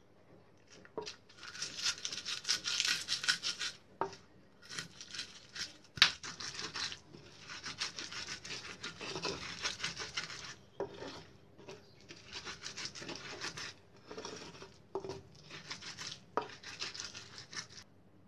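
A pestle grinding shallots, garlic, chilies and salt against a clay mortar into a spice paste: rough grinding and scraping strokes in spells of a few seconds with short pauses, and a sharp knock of the pestle about six seconds in.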